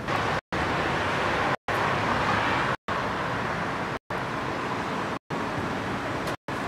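A steady rushing noise, broken by brief total dropouts of the sound about once a second.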